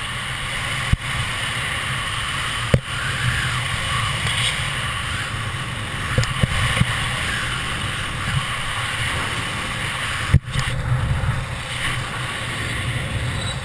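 Wind rushing over a skydiver's helmet-mounted camera microphone: a steady low rumble and hiss, broken by a few sharp clicks.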